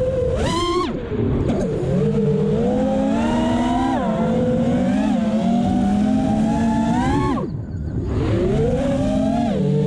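An FPV racing quadcopter's brushless motors whine in flight, their pitch rising and falling with the throttle. About half a second in the pitch climbs sharply. About seven seconds in it rises again, then drops away briefly as the throttle is chopped for a dive, and picks up again a moment later.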